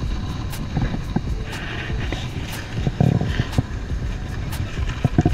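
Wind rumbling on the microphone over the wash of surf breaking against the jetty rocks, with a few light knocks from handling.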